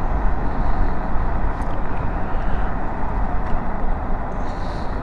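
Steady wind rush and road noise from riding an electric motorbike at speed, picked up by a microphone inside the rider's helmet; there is no engine note.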